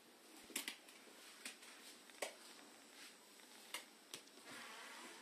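Quiet room tone broken by about six short, sharp clicks at irregular intervals, with a soft hiss near the end.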